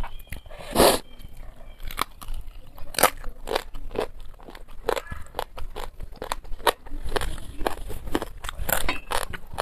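Close-miked chewing and crunching of fried fish: a string of irregular sharp crackles and wet mouth clicks, with one loud crunch about a second in.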